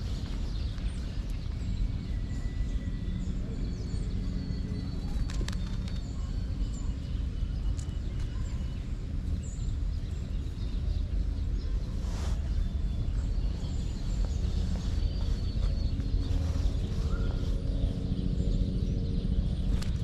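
Steady low background rumble with thin, high whistled calls of small wild songbirds, each held a second or so, and a few short chips.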